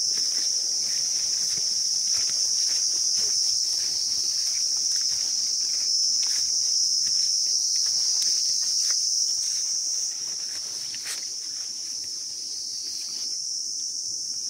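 A dense insect chorus, a steady high-pitched drone, with soft footsteps along a path beneath it. The chorus dips slightly in level about ten seconds in.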